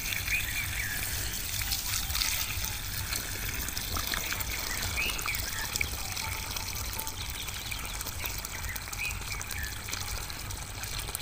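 Water pouring slowly in a thin stream from a plastic bucket into a muddy planting hole, trickling and splashing steadily onto wet soil. This is the first watering of a newly planted guava sapling, poured gently so the soil ball around the roots does not break.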